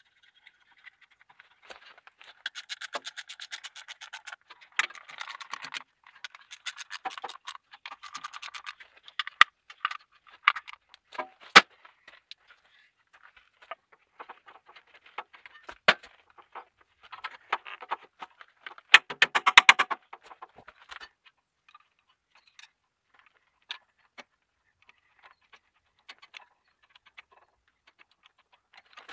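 Hand tools and metal parts clicking and clinking on a tractor diesel engine as covers and hose clamps are refitted: runs of rapid, even clicks in several spells, between single knocks, and thinning to scattered ticks near the end.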